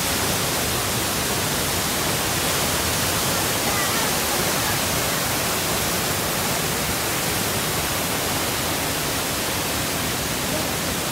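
Waterfall and fast stream rushing, a steady dense hiss of falling and running water.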